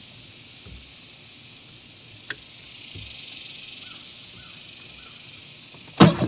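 Insects buzzing steadily in the trees, swelling into a louder pulsing buzz about three seconds in. A single sharp click comes a little after two seconds, and a short loud burst, the loudest sound, comes right at the end.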